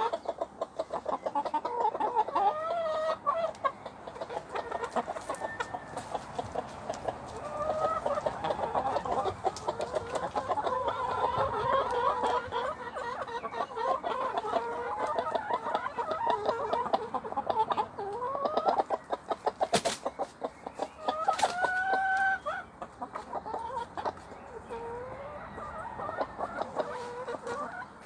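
A flock of fancy-breed chickens clucking and calling over one another, with a rooster crowing a couple of times in the second half.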